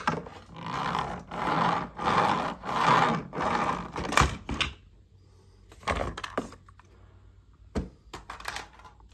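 A plastic toy garbage truck rolled back and forth, its wheels rasping in about five pushes over the first four seconds, then a few sharp clicks of plastic toys being handled.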